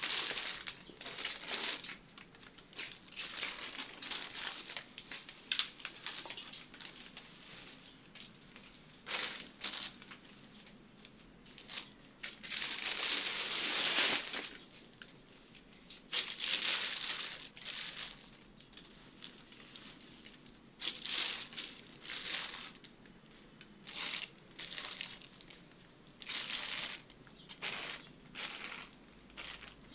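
Plastic sheeting and wrappings crinkling and rustling in irregular bursts as gloved hands pull and crush them, with one longer stretch of crinkling about halfway through.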